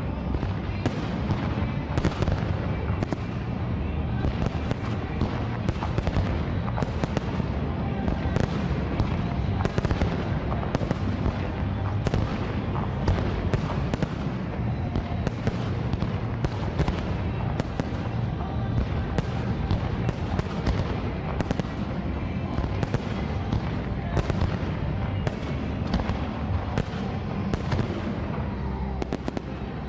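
Fireworks display: a dense, continuous barrage of shell bursts, sharp bangs and crackle following each other rapidly over a low rumble.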